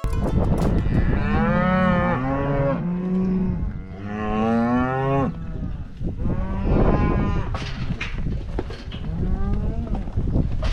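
Beef cattle mooing: a string of long drawn-out calls from several animals, some overlapping, one starting every two to three seconds.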